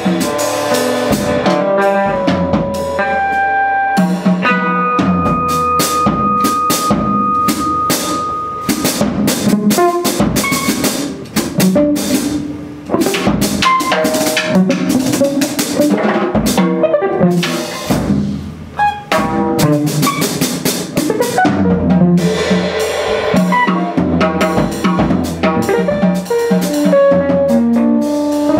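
Electric guitar and drum kit played live together: a busy run of drum and cymbal strokes with guitar notes over them. About five seconds in, a high note is held for several seconds.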